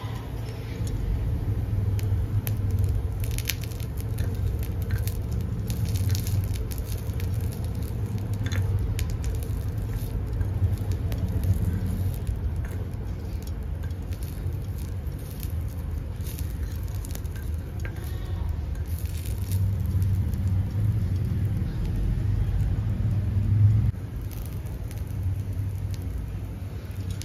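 A steady low rumble that drops suddenly near the end, over faint crackling and scattered scraping clicks as a tiny spoon stirs moringa leaves in a miniature clay pot over a small twig fire.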